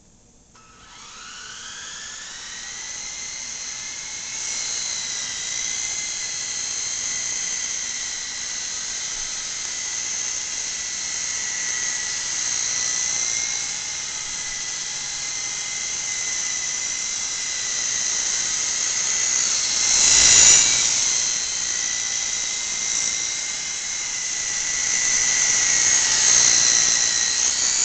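Small coaxial twin-rotor toy RC helicopter's electric motors and rotors. A high whine rises in pitch as they spin up about half a second in, then holds steady while it hovers. There is a brief louder rush about twenty seconds in.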